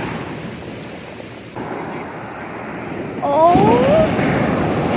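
Surf washing up the beach close to the microphone, then a big wave breaking about three and a half seconds in, the loudest moment. A short rising cry is heard just as it breaks.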